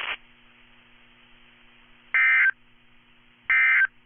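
Emergency Alert System SAME end-of-message signal: two short, high-pitched buzzy digital data bursts about 1.3 seconds apart, each about a third of a second long, closing the weekly test broadcast. A faint steady hum from the radio channel lies beneath.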